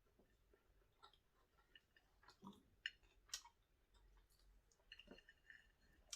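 Faint chewing and small mouth clicks of someone eating fried gizzard, with a couple of sharper clicks about three seconds in.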